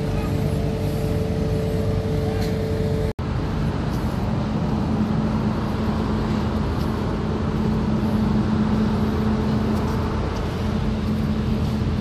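Steady mechanical rumble with a constant low hum. It drops out for an instant about three seconds in.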